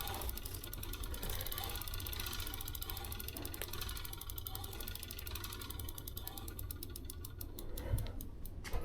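Bicycle wheel spinning freely, its freewheel hub's ratchet pawls clicking in a rapid, even train that slows toward the end as the wheel coasts down.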